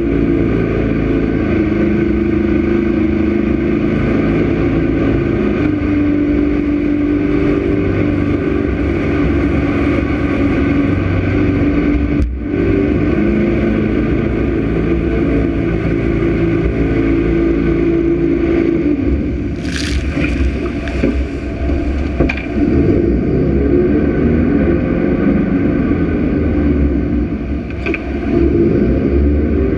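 Jet boat engine running steadily at speed, with wind and water rushing past. About twenty seconds in and again near the end, spray splashes onto the camera.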